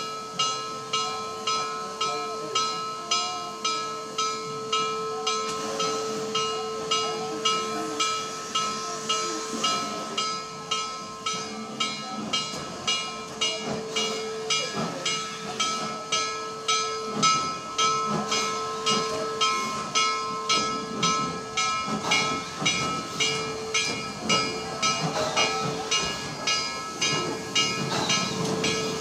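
Steam locomotive No. 734, a 2-8-0 Consolidation, standing under steam on a turntable. It hisses steadily, with a rhythmic panting about twice a second and a steady whine underneath.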